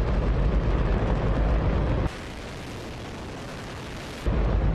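Hydrogen-oxygen rocket engine firing: a steady, deep roar of noise, the loudest sound conceivable. About two seconds in it drops to a quieter, thinner roar, then comes back at full strength near the end.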